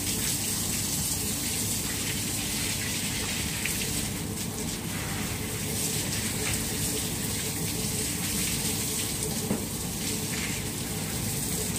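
Water running steadily from a garden hose with an even rushing hiss, over a faint steady low hum.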